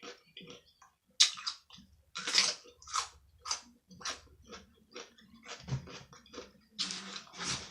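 A person chewing food close to the microphone: a run of short, wet mouth clicks and smacks, about two a second, mukbang-style.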